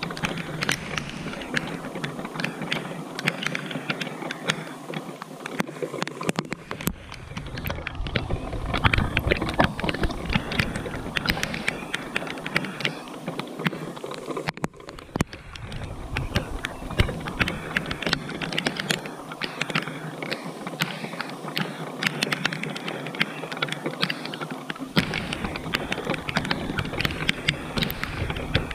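Steady rain falling, a dense patter of many drop hits.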